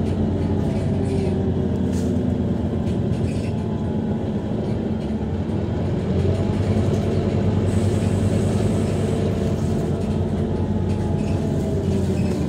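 Scania DC9-16-230 five-cylinder diesel engine of a Scania K230UB bus running steadily under way, heard from inside the bus, with its ZF 6HP504C automatic gearbox in drive. The engine gets a little louder about six seconds in.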